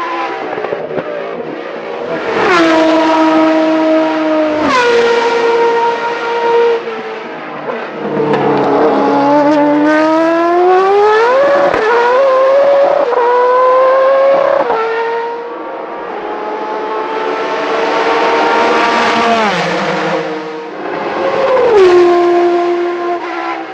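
High-revving formula racing car engines at speed, at least two cars. The pitch steps sharply down on quick downshifts while braking, then climbs in a long rising sweep with rapid upshifts as a car accelerates out of the corner.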